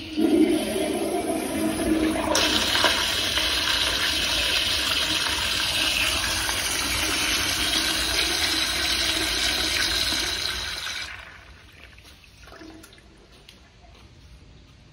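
Commercial toilet flushing with a flush valve: rushing water starts at once, turns into a loud, hissing rush about two seconds in, then dies away about eleven seconds in.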